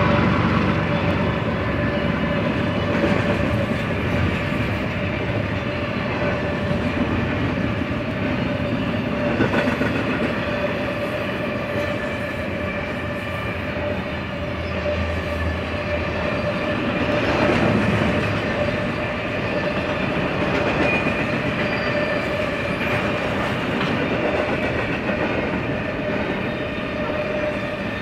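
Double-stack intermodal container cars of a BNSF freight train rolling steadily past, wheels clicking over the rail joints with a continuous rumble and clatter.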